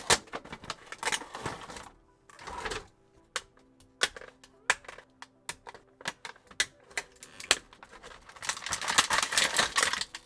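Action-figure packaging being opened and handled: many sharp clicks and taps of plastic and cardboard, with bursts of crinkling rustle about a second in, about two and a half seconds in, and a longer one near the end.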